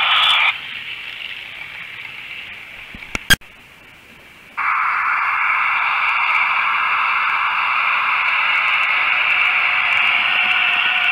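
Steady static-like hiss that drops away about half a second in, a single sharp click a little past three seconds in, and the hiss coming back suddenly about four and a half seconds in and holding steady.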